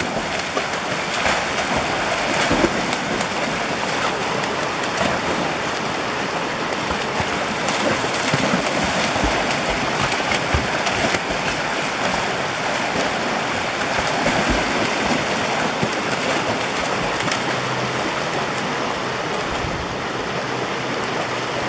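Shallow rocky creek rushing steadily over stones, with a dog splashing and wading through the water now and then.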